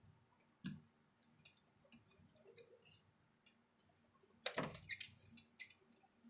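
Scattered light clicks and rattles of small hard objects being handled, with a sharp click just under a second in and a louder clatter about four and a half seconds in.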